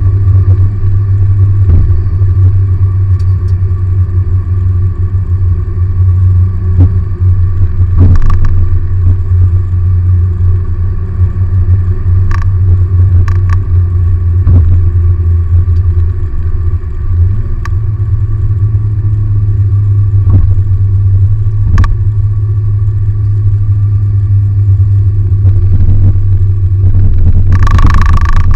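Steady low in-cabin drone of a Perodua Bezza at highway speed: its 1.3-litre 1NR-VE engine together with road noise from Kumho Ecsta V720 semi-slick tyres on a wet road. Scattered knocks come through from the road surface, and a brief louder rush comes near the end.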